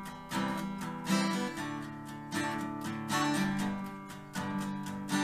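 Background music: a strummed guitar playing a steady, repeated pattern.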